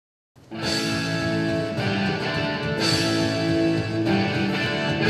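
Opening music that starts about half a second in, with a new chord struck roughly every second.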